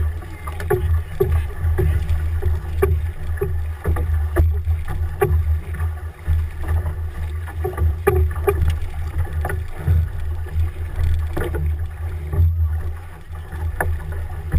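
Wind rumbling on the microphone, with scattered sharp knocks from a big voyageur canoe and its crew on the water.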